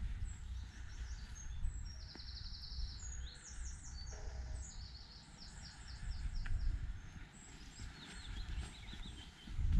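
Several songbirds singing: bursts of quick, high repeated notes and trills, over a steady low rumble.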